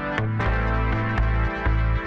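Background electronic music with a steady beat and deep held bass notes.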